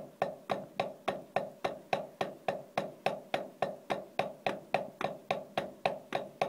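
Wooden drumsticks striking an HQ rubber practice pad in a double stroke roll (two strokes per hand, bounce then down stroke), played as an even, steady rhythm of about three sharp taps a second.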